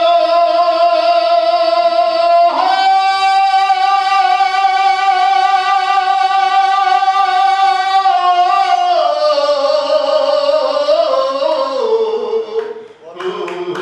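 A man singing one long held vowel through a microphone, stepping up to a higher note about two and a half seconds in, then coming down in steps near the end and breaking off.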